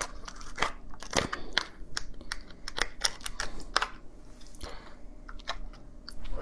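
A crab being broken apart by hand: its shell and legs cracking and snapping in a run of sharp, irregular clicks.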